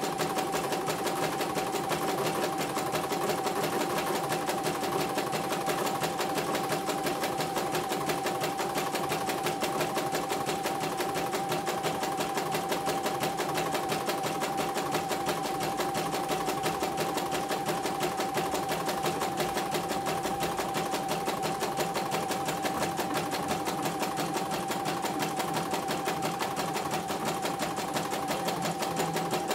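CNY computerized embroidery machine stitching steadily: a fast, even run of needle strokes over a constant motor whine. The machine is running smoothly again after being repaired from a total jam.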